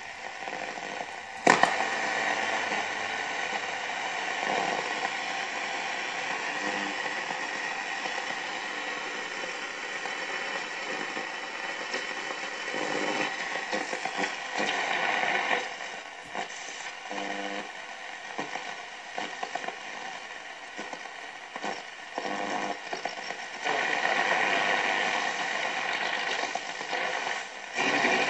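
VEF Spidola 230-1 radio receiver being tuned between stations: hiss and static that shift as the dial moves, with short snatches of signal breaking in and out, and a sharp click about a second and a half in.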